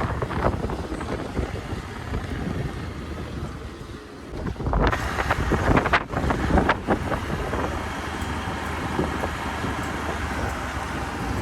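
Wind buffeting the microphone, with a cluster of sharp knocks and rustles about five to seven seconds in.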